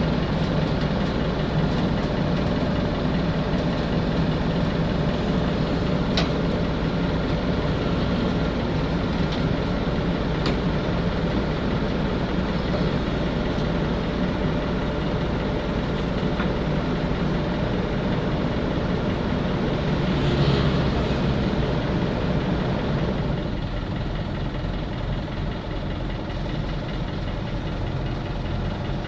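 Heavy diesel engine running steadily. It swells briefly about twenty seconds in, then settles to a slightly lower, throbbing run.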